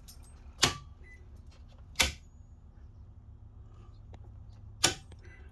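Circuit breakers in an RV's breaker panel being flipped to reset them: three sharp snapping clicks, spaced about one and a half to three seconds apart, over a low steady hum.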